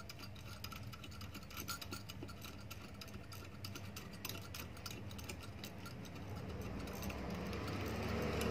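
Light metallic ticks and scrapes of a small nut and washer being turned by hand on the thermostat screw of an electric clothes iron, tightening the thermostat strip to set it. A low steady hum grows louder in the second half.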